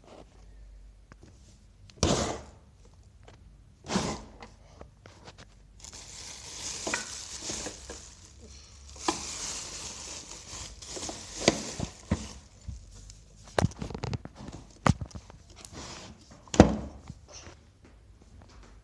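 Handling noise from cleaning up a mess: two sharp knocks, then several seconds of rustling and crumpling, followed by scattered knocks and taps.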